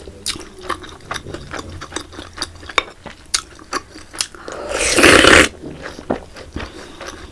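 Close-up eating of soft, syrupy Indian sweets: a run of small wet clicks and smacks from chewing, with one loud slurp swelling for about a second near the middle.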